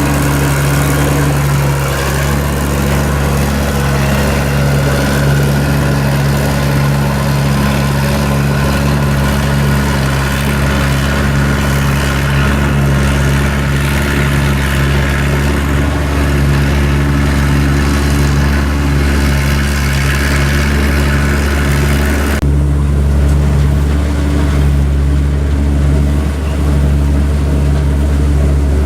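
Rice combine harvester running steadily, its engine giving a continuous low hum under a broad mechanical rush. The higher rushing noise drops away suddenly about 22 seconds in, leaving mainly the engine hum.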